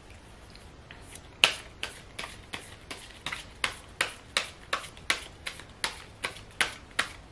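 A deck of tarot cards being shuffled by hand, with a crisp snap of cards about three times a second. The snapping starts about a second and a half in.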